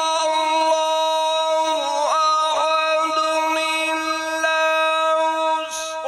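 A man reciting the Quran in melodic tajweed style, holding one long steady note with small ornamental flicks in pitch, and a short hissing consonant near the end.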